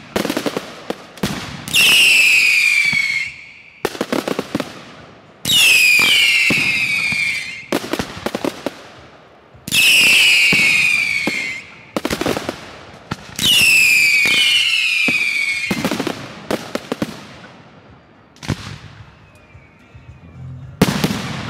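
Fireworks display: bursts of sharp bangs and crackling, each followed by a shrill whistle that falls slightly in pitch, repeating about every four seconds. The bursts thin out toward the end, with one more loud bang just before the end.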